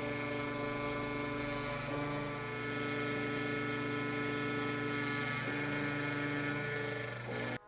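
Taig CNC milling machine cutting a metal plate with a quarter-inch two-flute carbide end mill: a steady mechanical whine whose tone shifts a couple of times as the cut changes, then cuts off suddenly near the end.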